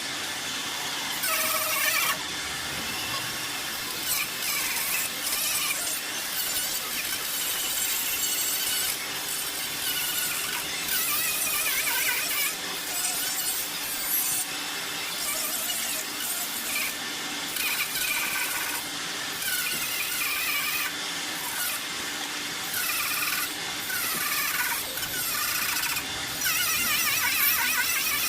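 Continuous shrill squealing and scraping on car body metal, wavering up and down in pitch over a steady hiss, as a quarter panel is worked in dent repair.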